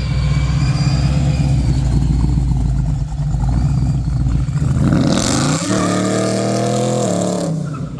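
Procharger-supercharged 427ci LS V8 running steadily, then revved up about halfway through, held at high revs with a rush of hiss for about two seconds, and dropping off sharply near the end.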